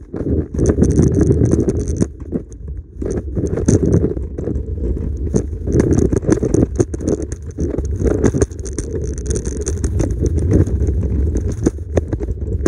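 Kick scooter wheels rolling over a concrete sidewalk: a steady low rumble broken by frequent clicks and knocks.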